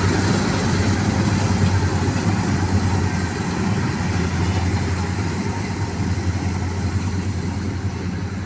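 Preet combine harvester running with a steady diesel engine drone that eases off slightly toward the end.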